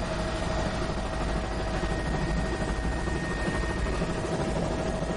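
Helicopter in flight heard from inside the cabin: steady engine and rotor noise with a constant whine over it.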